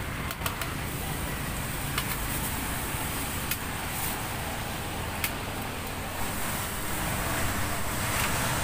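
Steady roadside traffic noise with a low rumble, broken by a few sharp clicks and taps as metal skewers, tongs and plastic bags are handled at the stall.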